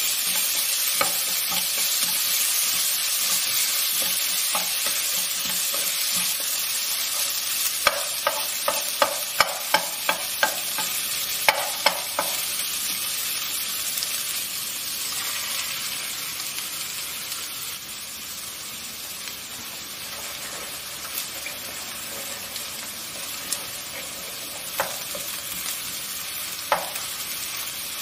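Vegetables sizzling as they are stir-fried in a nonstick pot, with a spatula scraping and tapping against the pan. There is a quick run of sharp taps partway through and a few single taps later on. The sizzle grows a little quieter in the second half.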